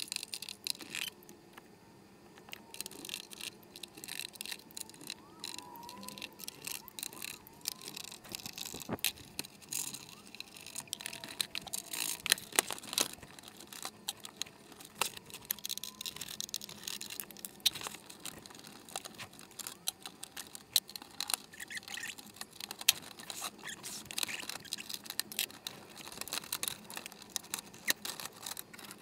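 Hands and a screwdriver working on the plastic case of an NEC PA500U projector: scattered clicks, taps and scraping as screws are undone and covers are handled and lifted off, with a few sharper knocks around the middle.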